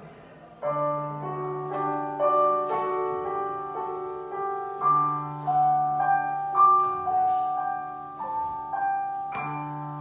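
Yamaha digital keyboard played in a piano voice: a melody of notes changing about every half second over long held bass notes, with no singing.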